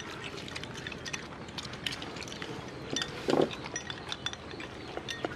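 Chopsticks tapping and clinking against small porcelain rice bowls as people eat, a scatter of light, irregular clicks.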